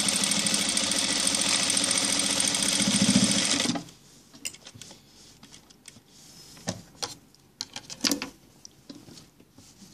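Industrial sewing machine stitching steadily through the jacket's pocket lining, stopping abruptly a little under four seconds in. After that, a scatter of light clicks and handling noises as the work is moved.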